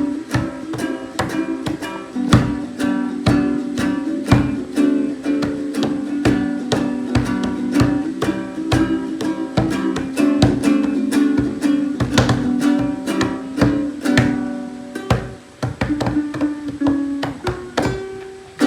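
Ukulele strummed in a steady rhythm, chord after chord, with a brief let-up about three-quarters of the way through.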